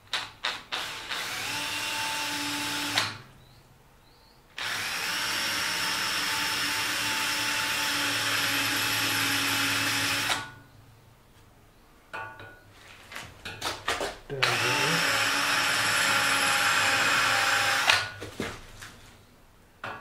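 Small cordless drill boring into wrought iron: the motor runs steadily in three spells of a few seconds each, stopping in between, with short trigger blips before and after each run.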